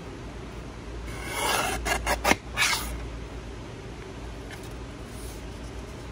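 Paper trimmer's blade cutting through a folded sheet of paper: a rasping scrape from about one to nearly three seconds in, with a few sharp clicks along the way.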